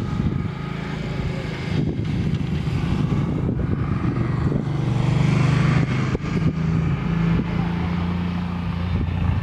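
Low, steady motor-vehicle engine drone, loudest about halfway through.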